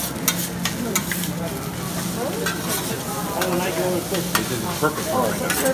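Fried rice sizzling on a steel hibachi flat-top griddle while metal spatulas scrape through it and clack against the griddle surface in quick, irregular strokes.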